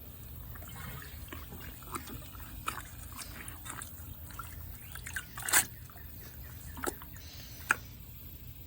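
Water dripping in small, irregular drops, with a few louder plinks in the second half.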